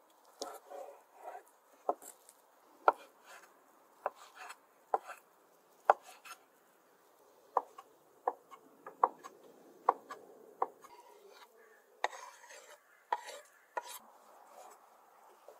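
Large chopping knife cutting beef tripe on a wooden cutting board: a series of sharp knocks of the blade on the board, roughly one a second, coming quicker near the end.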